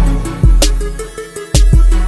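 Background music: a hip-hop style beat with heavy bass hits and steady pitched notes.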